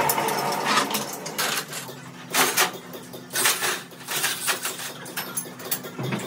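Irregular metallic clinks and knocks of tools and metal parts striking metal, a few loud strikes among lighter ones, over a faint steady hum.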